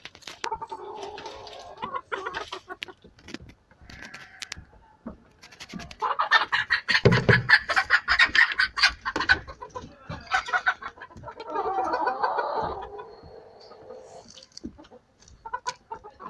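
Chickens clucking, with scattered short clicks, a loud squawking burst starting about six seconds in and lasting around three seconds, and a second shorter burst a few seconds later.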